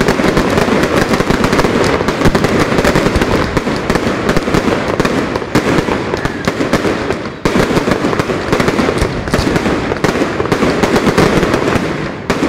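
Fireworks display in a dense, continuous barrage: rapid bangs and crackling overlapping without pause, with a short lull about seven seconds in.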